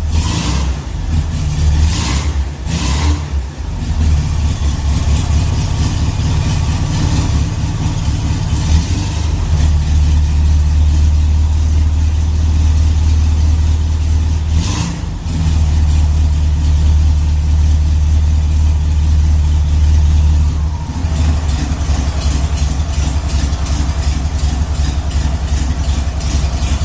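Volkswagen Beetle 1300's air-cooled flat-four engine running steadily, with a few short throttle blips near the start and about halfway, and its note changing about three-quarters of the way through.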